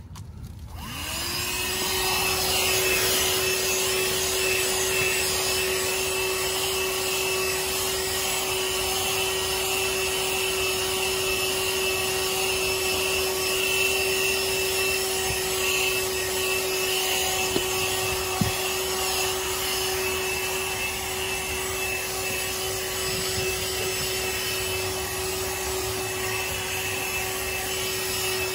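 Cordless handheld vacuum switched on about a second in, its motor spinning up to a steady whine with a rushing hiss of air as it sucks debris off car floor carpet.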